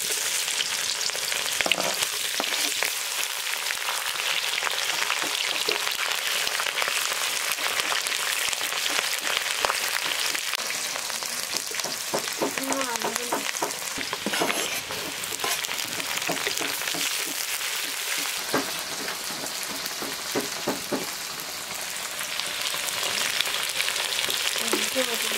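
Food frying in a pan, sizzling steadily, with frequent clicks and scrapes from stirring.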